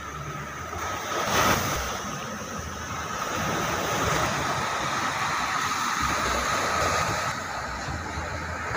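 Ocean surf breaking and washing up a sandy beach, a steady rush of waves with a louder surge about a second and a half in. Wind buffets the microphone underneath.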